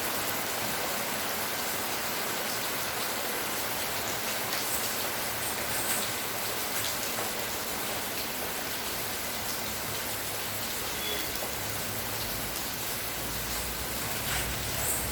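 Steady rainfall: an even hiss with scattered drop ticks.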